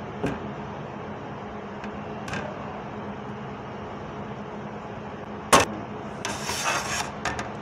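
Cleaver knocking on a cutting board as cooked jerk chicken is chopped: a few light knocks, then one sharp loud knock about five and a half seconds in. A scraping rustle about a second long and a few quick clicks follow. A steady hum from the kitchen's exhaust hood runs underneath.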